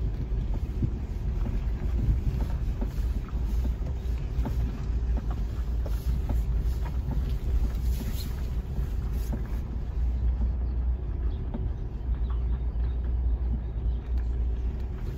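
Car driving slowly, heard from inside the cabin: a steady low rumble of engine and road noise with a faint hum and scattered small knocks.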